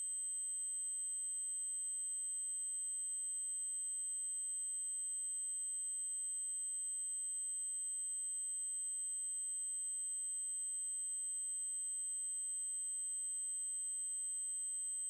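Synthesized 8192 Hz triangle-wave tone: a single steady, very high-pitched whine that holds unchanged without a break.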